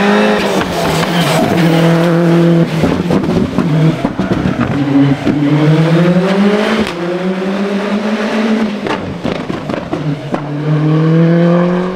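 Suzuki Swift Rally S rally car's engine revving hard under acceleration, its pitch climbing and dropping again and again with gear changes and lifts through the corners, with sharp cracks in between.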